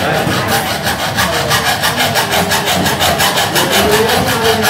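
Hacksaw cutting through a wooden plank, worked back and forth in quick, even strokes.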